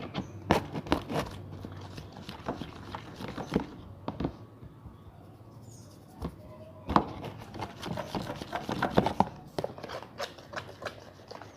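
Irregular clicks, taps and scrapes of containers and a utensil being handled while mixing homemade slime, busiest in the second half.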